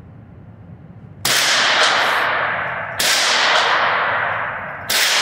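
Three rifle shots in an indoor shooting range, roughly two seconds apart, each followed by a long echoing tail off the range walls.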